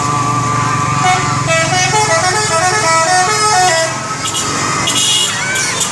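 A Subur Jaya bus's musical multi-tone horn plays a tune. It holds one note, then runs through short notes stepping up and down in pitch, over the steady hum of the bus's engine.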